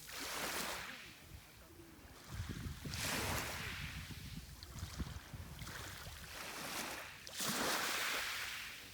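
Sea waves washing onto the shore in three surges: one just after the start, one about two and a half seconds in and one about seven seconds in. Each surge is a rush of hiss that swells and then fades, over a low rumble of water.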